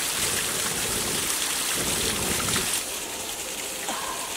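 Wood cooking fire being blown on by mouth: a steady breathy hiss with rumbling puffs of breath. It quiets somewhat after about three seconds.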